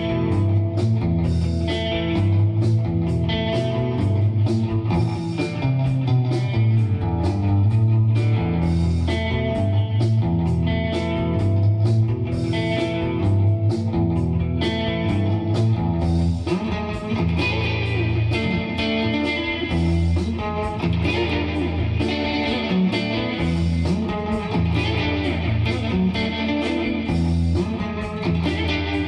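Electric guitar playing a melodic line over a backing track with a steady beat and low bass notes.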